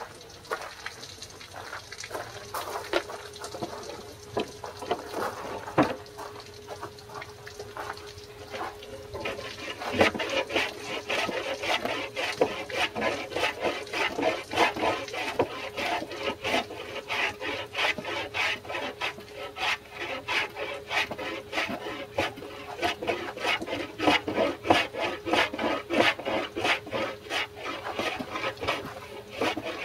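Footsteps on gravel and a few scattered knocks, then from about nine seconds in a hand plane shaving the wooden rudder in quick, even strokes, about two a second.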